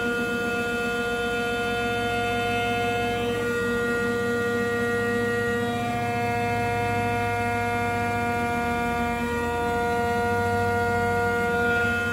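CNC milling machine spindle whining steadily while a three-flute end mill takes an adaptive clearing cut across an aluminium block, with a low rumble of the cut beneath. The pitch of some overtones steps slightly a few times as the cut moves across the part.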